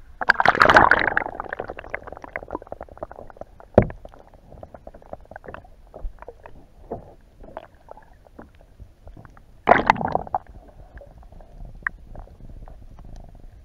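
Muffled underwater sound from a camera held below the sea surface: a low rumble with scattered clicks and crackles. A loud rush of water comes about a second in, as the camera goes under, and another near ten seconds.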